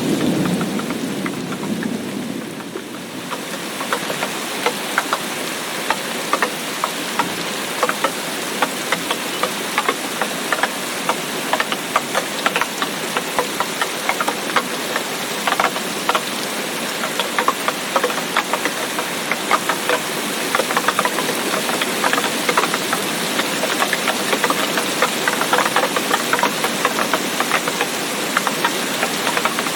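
Rain falling, a steady hiss crowded with many sharp, irregular drop ticks. A lower rush fades away over the first few seconds, and the ticks come thick from then on.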